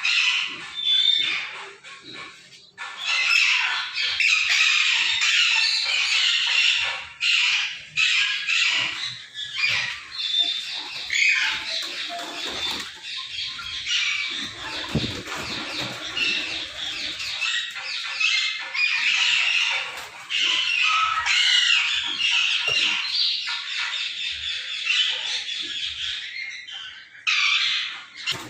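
Many caged parrots squawking and chattering together in a continuous din, with occasional wing flaps.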